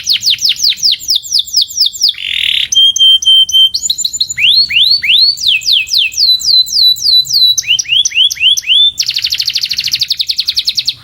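Domestic canary singing a song of changing phrases: a fast series of repeated falling notes, a short harsh buzz, a held whistle, rising and then falling sweeps, and finally a very rapid trill.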